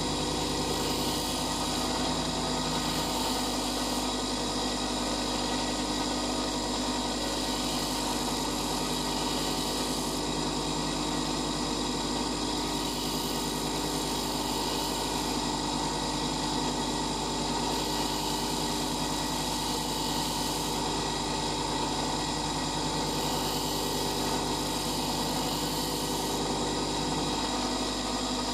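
Bench grinder running with a steady hum while a twist drill bit is held against its white grinding wheel, sharpening the point.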